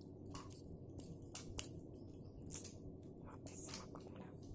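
A handful of light, irregular clicks and scrapes as a Qunhai SL-500 spinning reel is handled and its parts worked by hand, over a low steady hum.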